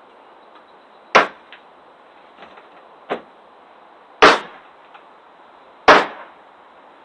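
Small survival multi-tool hatchet chopping into wood: three sharp chops, about a second in, past four seconds and near six seconds, with a lighter knock between the first two.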